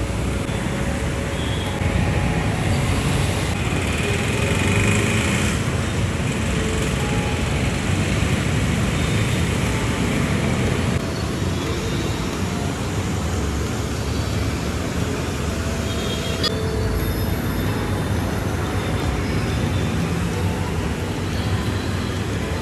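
Steady busy street noise with passing traffic, changing abruptly about eleven seconds in and again a few seconds later.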